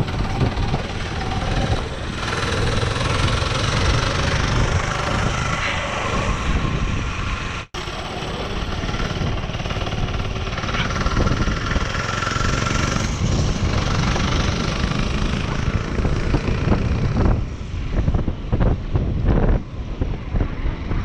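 Small motorcycle engine running steadily while riding, with wind buffeting the microphone. The sound cuts out for a split second about eight seconds in, and the wind gusts more unevenly near the end.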